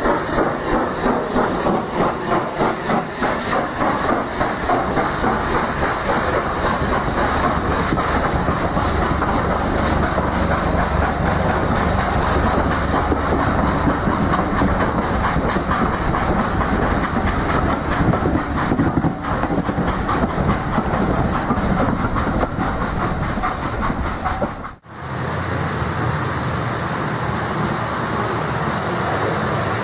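A full-size steam train passing close at speed: regular beats from the locomotive at first, then the coaches rolling by with a steady rumble and wheels clicking over the rail joints. About 25 s in it cuts suddenly to a steadier running sound from a model railway train.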